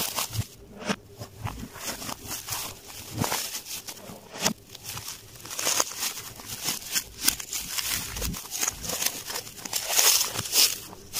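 Clear plastic wrap crinkling and rustling as it is handled around a cardboard box, in irregular crackles, loudest about ten seconds in.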